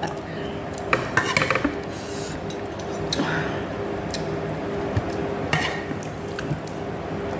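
Wooden chopsticks clicking and scraping against a ceramic bowl as they stir and lift noodles from the soup. There is a quick cluster of clicks about a second in, then single clicks now and then.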